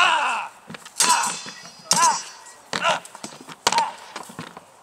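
Staged sword fight: about five blows a second or so apart, swords striking round wooden shields and metal, some of the hits ringing.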